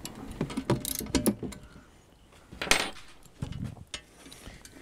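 Irregular metallic clicks and knocks from a bolt and nylon-insert lock nut being tightened through the shredder's sheet-metal top plate, with a hex key holding the bolt, and one louder scrape about halfway through.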